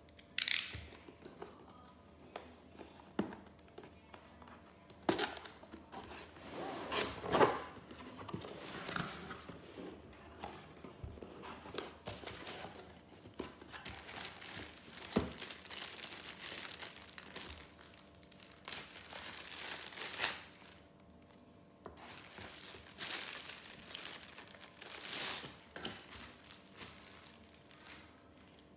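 A cardboard laptop box being opened and unpacked by hand: a utility knife slicing through the tape seal near the start, then cardboard flaps, foam packing and plastic wrap rustling and crinkling, with irregular sharp knocks as pieces are handled. Near the end the power cord is lifted out of the box.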